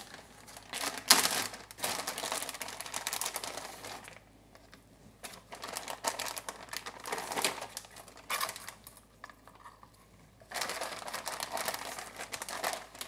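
Zip-top plastic bag crinkling and rustling as raw fish fillets are pulled out of it, in three stretches of rustle with small clicks and quiet gaps between.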